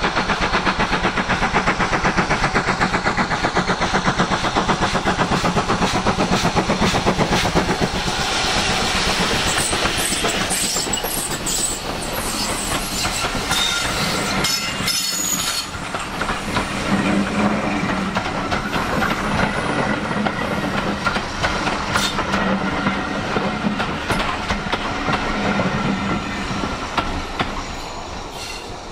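Great Western steam tank locomotive approaching and passing, its exhaust beating in a rapid, even rhythm. After about eight seconds its coaches roll by, wheels clicking over the rail joints with faint squeals, and the sound fades away near the end.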